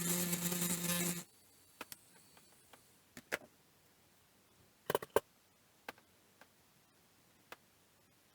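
A small electric motor buzzes steadily for about a second and cuts off, followed by scattered light clicks and taps of hand tools on a circuit board, the loudest a quick pair about halfway through.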